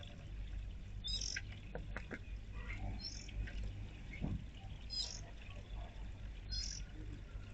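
Small backyard birds calling: short, high chirps repeating about every one and a half to two seconds, with a few lower chirps in between, over a steady low hum.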